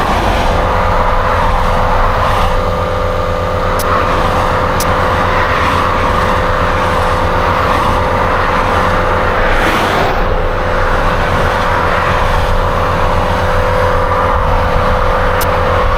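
A motor vehicle engine running steadily, with a low rapid pulsing hum and a constant mid-pitched tone, and a few faint clicks on top.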